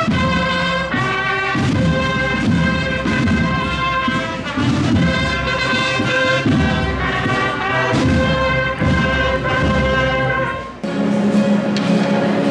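Brass band music with trumpets, trombones and drums playing held notes over a drum beat. It breaks off abruptly about eleven seconds in, and steadier sound takes over, likely the start of singing.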